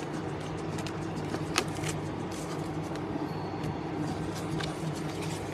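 Baseball trading cards being handled and flipped through: a scatter of small clicks and snaps, one sharper click about a second and a half in, over a steady low hum.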